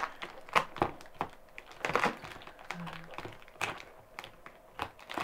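Scissors snipping through plastic packing tape on a cardboard box, with the tape crinkling and tearing and irregular clicks and taps against the box.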